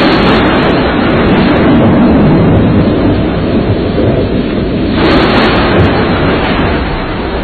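Loud noise of a strong storm: a sudden surge of rushing noise, a second surge about five seconds in, then easing off.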